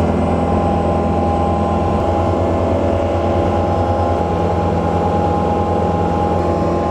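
Small fishing boat's inboard engine running steadily at cruising speed: a low drone with a steady higher whine over it.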